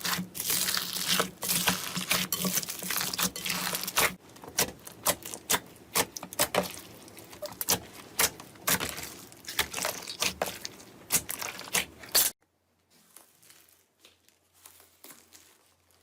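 Slime being squeezed and stretched by hand, with dense crackling and then separate sharp pops and clicks, as in crunchy or bubbly slime. The sound cuts off suddenly near the end, leaving only faint soft squishing.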